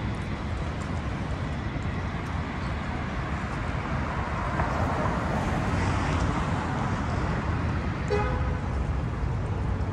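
Steady city street traffic noise with a deep rumble, swelling as a car passes about halfway through. Near the end a car horn gives one short toot.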